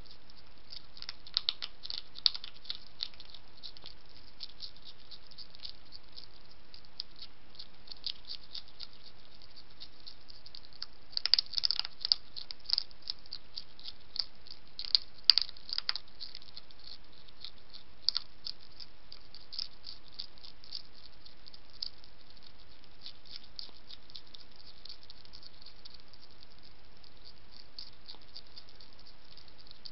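European hedgehog crunching dry kitten kibble: a rapid, irregular run of small sharp crunches and clicks over a steady hiss, busiest about midway through.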